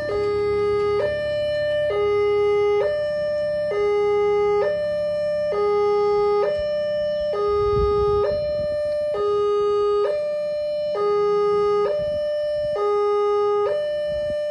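Railway level-crossing warning alarm: an electronic two-tone chime, a low note and a high note alternating about once a second, signalling that a train is approaching and the crossing barriers are closing.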